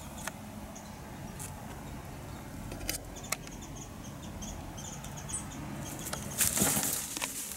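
Quiet outdoor background with faint high bird chirps and a few light clicks. About six seconds in, a loud rustling of dry leaves and brush starts.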